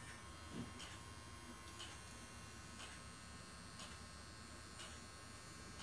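Faint ticking of a mechanical clock, about one tick a second, over a steady low electrical hum.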